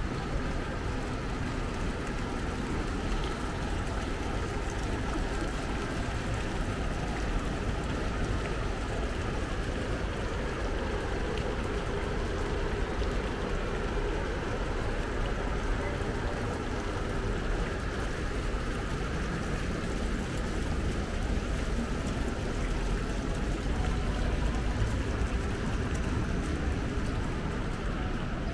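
Steady city street ambience: an even background of traffic rumble with no distinct events.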